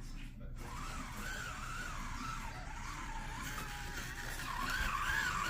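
Electric motor of an RC truck whining as it drives, its pitch rising and falling with the throttle and getting louder near the end.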